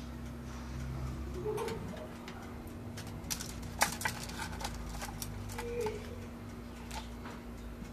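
Metal kitchen tongs clicking and tapping against a foil-lined tray and wire rack: a scattered run of light clicks in the middle, over a steady low hum.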